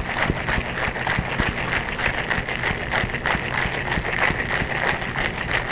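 Ice rattling inside a towel-wrapped cocktail shaker shaken hard in a rapid, even rhythm: the wet shake with ice for a Ramos Gin Fizz.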